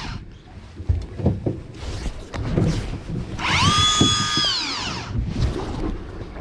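Small electric motor winding in fishing line, spinning up to a steady high whine about three and a half seconds in, holding for about a second and a half, then winding down. Scattered knocks and clunks come before it.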